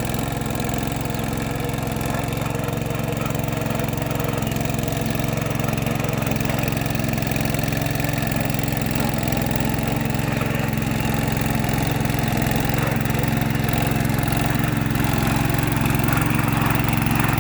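Tractor engine running steadily, slowly growing louder.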